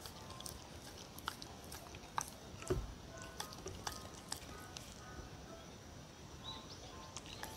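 A dog licking and nibbling at a cucumber stick held out by hand, making many small wet clicks, with a dull bump a little under three seconds in. Soft background music with a light melody plays underneath.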